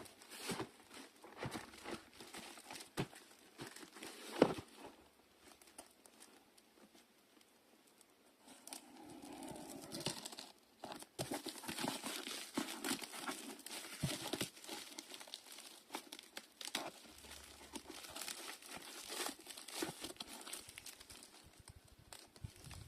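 Packaging crinkling and rustling as football boots are unboxed: scattered handling clicks at first, then after a short lull a denser, continuous crinkling.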